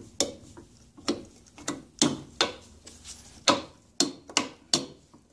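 Sharp metal clicks and knocks, irregular, about two a second, as the gear and shaft assembly is worked back and forth inside an Evinrude 60 HP outboard's gearcase. The assembly is stuck and does not come out.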